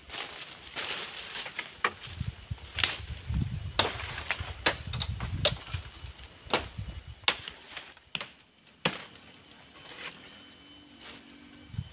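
Brush and woody stems being cut and broken at the base of a tree: a string of about eight sharp snaps and knocks at irregular intervals, with rustling and low thuds in the first half.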